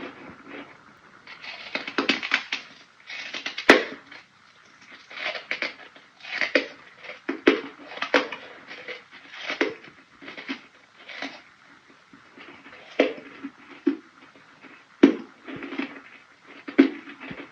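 Close-miked bites into crunchy ice: a series of crisp crunches about once a second, with a few sharper cracks among them.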